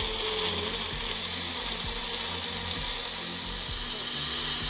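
Countertop blender running steadily, blending apple pieces, almonds and walnuts with almond milk.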